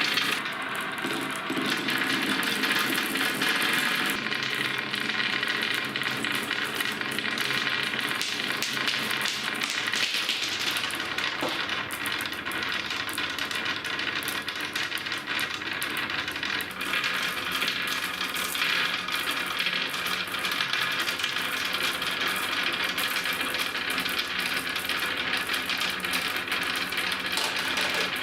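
A crowd of marbles rolling together down a long wooden slope course, a steady dense rattle of clicks and clacks as they hit the wood and each other.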